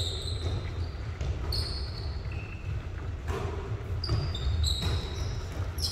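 Basketball play on a gym court: sneakers squeaking in short high squeaks on the floor, many times over, and the ball bouncing now and then.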